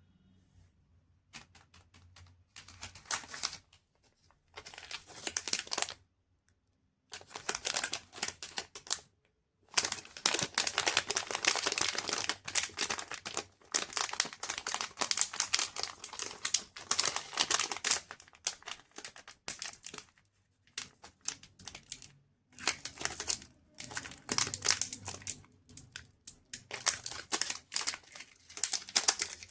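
Chocolate wrappers crinkling and crackling as they are handled and unwrapped, in bursts of dense crackle with short pauses between them and a long unbroken stretch through the middle.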